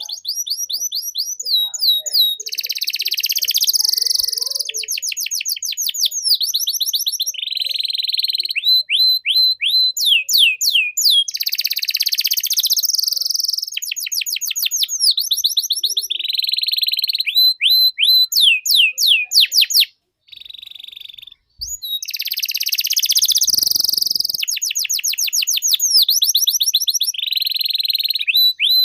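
Domestic canary singing a long, continuous song of rapid trills, runs of repeated falling whistles and buzzing rolls, with a brief pause about two-thirds of the way through.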